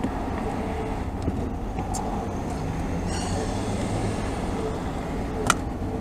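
Steady low rumble of street traffic, with a single sharp click near the end.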